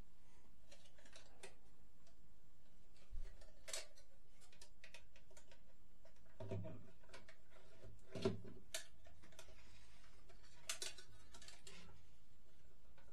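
Scattered light clicks and taps with three duller knocks, the loudest a little past the middle, from small hard objects being handled.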